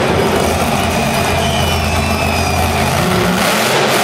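Monster truck engine running hard at steady high revs, easing off about three seconds in.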